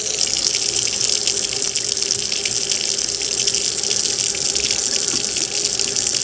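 Kitchen faucet running a steady stream of hot water into a stainless steel sink and down the open drain, flushing it out after a baking soda and vinegar treatment.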